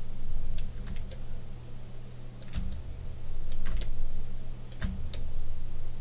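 Light, irregular clicks at the computer, about seven of them, from the mouse or pen being worked while painting in software, a few with a soft knock on the desk, over a steady low electrical hum.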